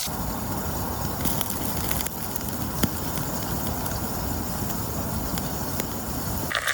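Campfire burning: a steady low rush with scattered small crackles and pops, one sharper pop near the middle.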